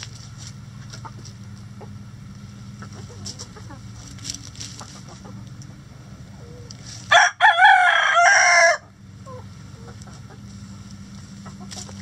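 Rooster crowing once, loud and close, about seven seconds in: a short first note, then a long wavering note of about a second and a half. Hens cluck softly around it, over a steady low hum.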